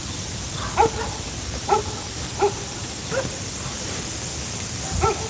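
A dog barking repeatedly, short single barks a little under a second apart.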